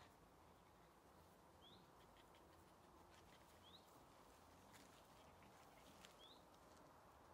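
Quiet garden ambience with a small bird repeating a short rising chirp about every two seconds, four times, and a few faint ticks and rustles in the middle.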